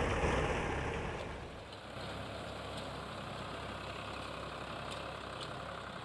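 Eicher 551 tractor's three-cylinder diesel engine running steadily while it drives a round baler picking up straw. It is a little louder for the first second or so, then settles.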